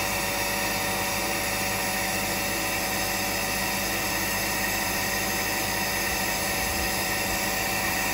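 Carpet-cleaning extractor's vacuum motor running steadily: an even hiss with a few steady whining tones, unchanging throughout.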